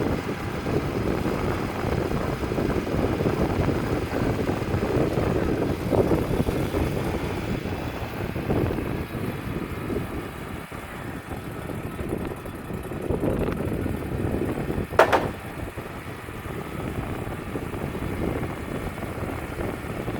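Wood-Mizer LT35 portable band sawmill running steadily under power. A single short, sharp knock about three-quarters of the way through is the loudest sound.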